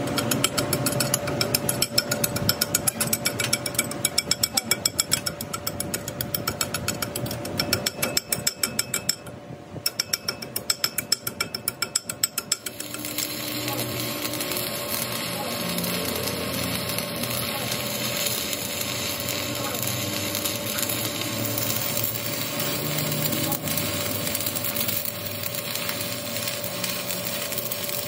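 Rapid, evenly repeated mechanical knocking, several strokes a second, for about the first half, with a brief pause partway through. It then gives way to a steady machine running with a constant hum.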